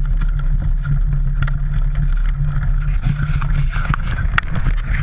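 Mountain bike rolling down a leaf-covered dirt trail: a steady low rumble with frequent sharp clicks and rattles from the bike and its tyres over dry leaves.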